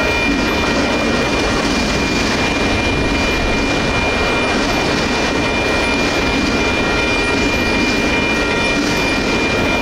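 Union Pacific autorack freight cars rolling past steadily, their wheels running over the rails. A steady high ringing tone lies over the rolling noise.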